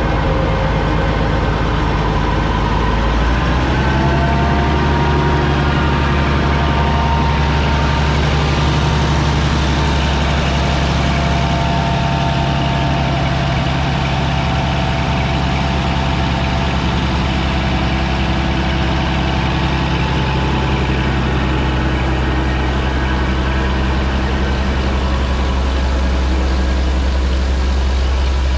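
Combine harvester's engine running steadily in the field. About three and a half seconds in, its pitch shifts, and then it holds even.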